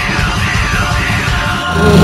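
Loud heavy rock music with a pattern repeating about twice a second; near the end it changes abruptly to a louder passage.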